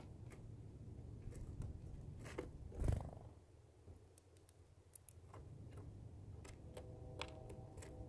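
Small birds, a finch and a red-breasted nuthatch, pecking and cracking sunflower seeds on a wooden platform feeder: faint scattered sharp clicks and taps. A soft low thump about three seconds in is the loudest sound, and a faint low hum comes in near the end.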